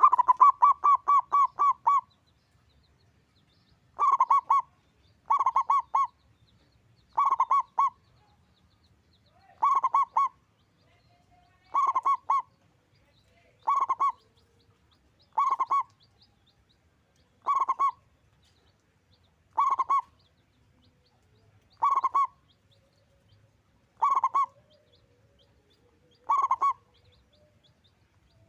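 Zebra dove (perkutut) cooing: a quick run of about eight staccato notes at the start, then short bursts of rapid cooing notes repeated about every two seconds.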